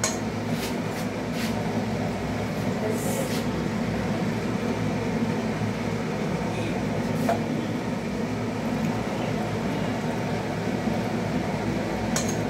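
A steady low rumbling hum, with a few light metallic clicks: a metal pot being touched on the stove, once at the start and once near the end.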